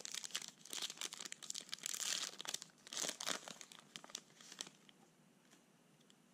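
Foil wrapper of a Panini Prizm baseball card pack being torn open and crinkled by hand, a run of sharp crackles that stops about four and a half seconds in.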